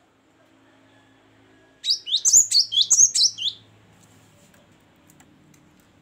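Cinereous tit (gelatik batu) singing a quick burst of about a dozen sharp, high notes, each sweeping in pitch, for about a second and a half starting about two seconds in.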